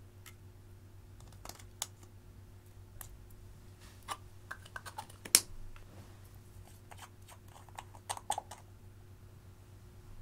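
Scattered light clicks and taps of plastic makeup tubes, caps and bottles and a metal spatula against glass baking dishes as makeup is added to clear slime, with one sharper click a little past halfway and a quick run of taps near the end.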